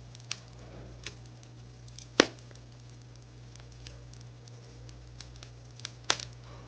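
Wood fire crackling: scattered small snaps, with two louder pops about two seconds in and near the end, over a steady low hum.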